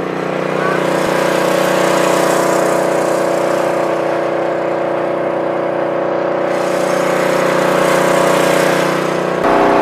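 Small single-cylinder gasoline engine of a log splitter running steadily at constant speed. It gets louder abruptly near the end.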